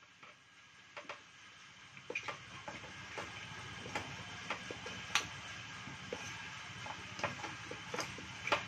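Raw potato slices being mixed by hand with masala in a perforated stainless-steel bowl: faint, irregular clicks and taps as the slices knock against each other and the metal, a few of them louder.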